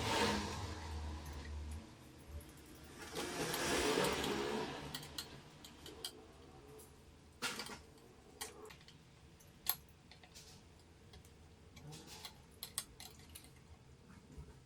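Handling noise: two swells of rustling or scraping, then a series of separate sharp clicks and taps.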